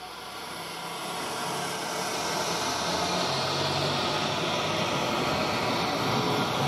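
A train running, a steady rushing rumble with a low hum, fading in and growing louder over the first few seconds, then holding steady.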